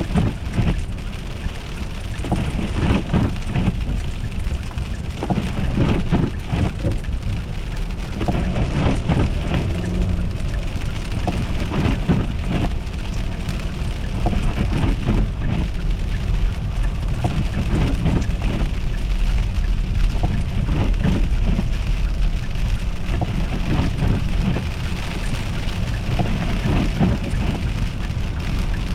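Car driving on an icy, slushy road: steady low road noise with constant crackling from the tyres on ice and slush.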